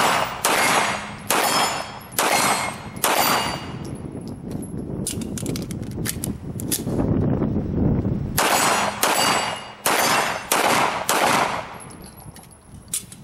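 CZ Shadow 2 9mm pistol firing two strings of five shots, about three-quarters of a second apart. Steel target plates ring with the shots. Between the strings there are lighter metallic clicks and knocks.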